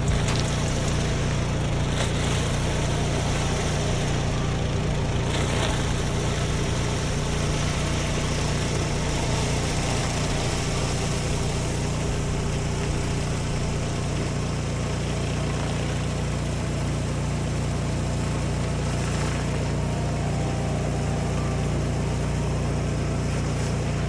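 Engine-driven pressure washer running steadily under an even hiss of high-pressure cold water spraying onto concrete.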